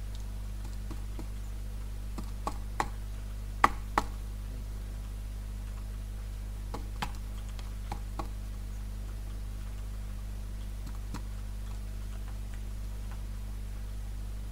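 Scattered light plastic clicks and taps of colouring markers being uncapped, capped and set down, a few at a time, the loudest pair about four seconds in, over a steady electrical hum.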